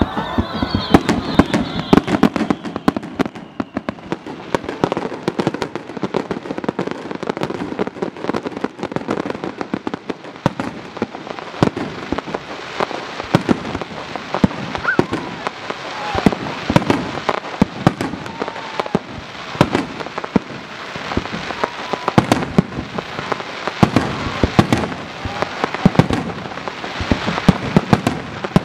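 Fireworks launching and bursting in rapid succession: a dense, near-continuous volley of sharp bangs and crackles that breaks out suddenly and keeps going.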